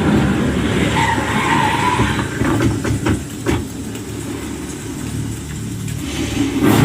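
Action-film fight scene soundtrack playing loud through a Sony HT-S20R soundbar-and-subwoofer home theater: a dense mix of heavy low-end sound effects, with a run of sharp hits about two to three and a half seconds in.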